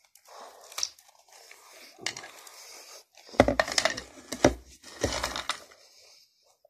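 Close-up eating noises: a mouthful of french fries being chewed fast and crammed in by hand, with soft rustles and clicks. About halfway through comes a run of louder irregular knocks and rustles with a low thump.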